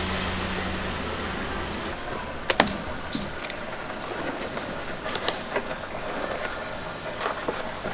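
Cardboard carry box being folded and assembled by hand: scattered sharp clicks and snaps of creasing card and flaps, loudest as a quick pair about two and a half seconds in. A steady low hum sounds at first and stops about two seconds in.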